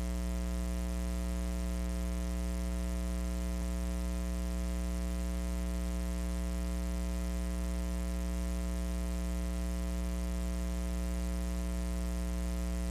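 Steady electrical mains hum in the audio feed: a low, unchanging buzz with evenly spaced overtones and no variation in pitch or level.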